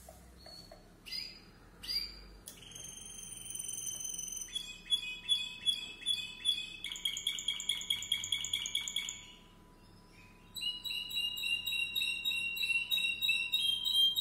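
A Spanish Timbrado canary singing. A couple of short notes come first, then a long song of held whistles and fast rolling trills. After a short pause about nine seconds in, a second phrase of rapid repeated notes follows.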